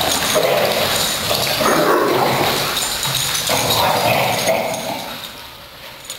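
Several dogs barking during rough play, in three bouts each about a second long, dying down near the end.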